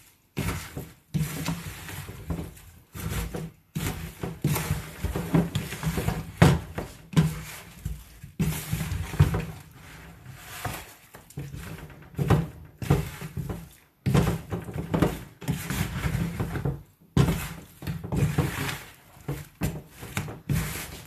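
A spoon stirs and tosses spice-coated raw chicken wings in a plastic bowl, making irregular knocks and scrapes against the bowl and wet squelches of the meat.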